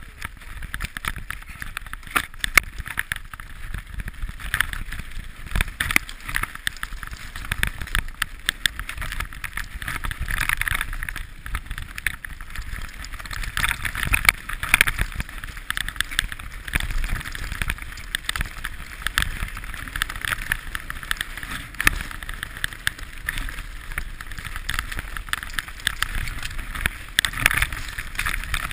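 Mountain bike ridden over a rocky trail, heard through a handlebar-mounted camera: continuous irregular rattling and knocking of the bike over stones, with tyre and wind noise.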